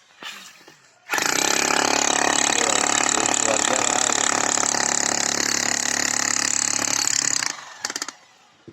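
Loud road-construction machinery running steadily for about six seconds, starting abruptly about a second in and cutting off near the end.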